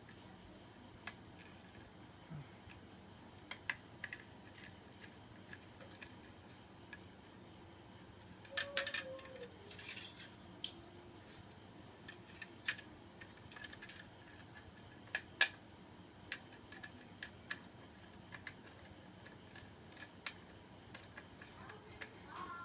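Scattered light clicks and taps from the small parts of a mini ceiling fan being handled, with a short rustling, scraping cluster about nine seconds in.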